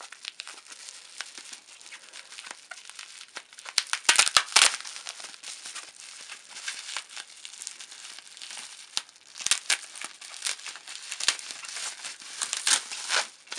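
Plastic wrapping crinkling and crackling as a wrapped toy train engine is unpacked by hand, with louder bursts of crackling about four seconds in and again near the end.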